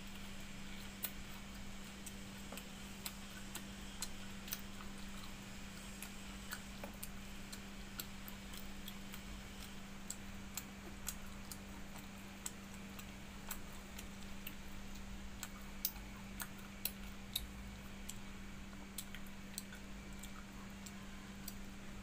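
A person eating by hand from a steel bowl of watered rice: many irregular sharp clicks and wet smacks of chewing and of fingers in the bowl, over a steady low hum.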